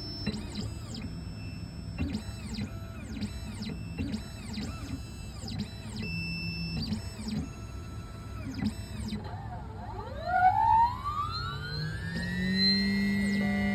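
Electronic synthesizer music: a pattern of short rising-and-falling blips repeating, then about ten seconds in a rising sweep that settles into a held chord.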